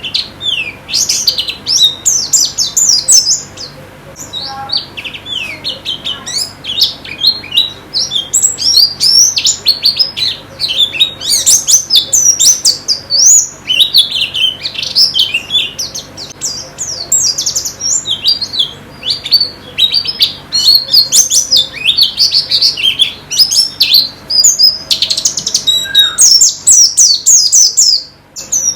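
White-eyes (pleci) singing: a rapid, unbroken run of high chirps and twitters, with a short break near the end.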